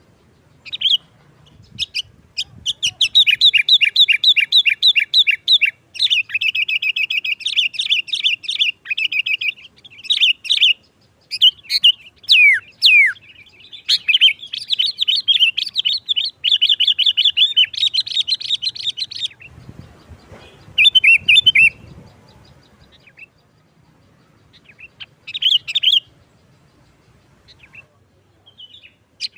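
Sooty-headed bulbul (kutilang) singing loudly in long, fast chattering runs of sharp repeated notes, with a few quick swooping whistles. The runs go on almost without a break for the first two-thirds, then give way after a pause to a few short bursts.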